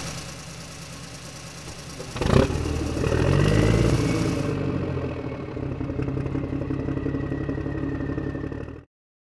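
Motor vehicle engine running steadily, with a sharp clunk about two seconds in. The engine then revs up, rising in pitch, and runs on at higher speed until it cuts off suddenly near the end.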